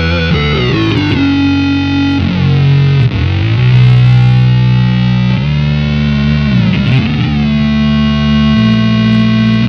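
Electric guitar through an EarthQuaker Devices Data Corrupter PLL synth pedal with its square-wave fuzz switched off, so only its two oscillator voices sound: held synth-like notes that sweep up or down in pitch when the note changes, several times.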